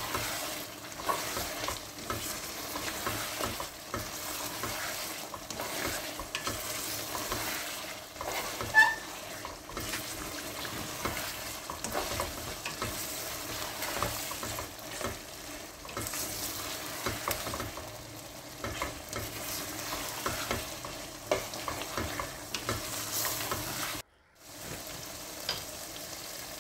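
Chicken pieces frying in oil and biryani masala in a metal pot, sizzling while a spatula stirs and scrapes through them with frequent small knocks. About two seconds before the end the sound cuts out briefly, then the sizzle goes on without the stirring.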